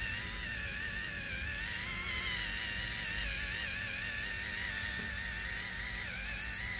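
Cnaier 4-in-1 electric face massager running with its cleansing attachment spinning against soapy skin: a steady small-motor whine whose pitch wavers slightly.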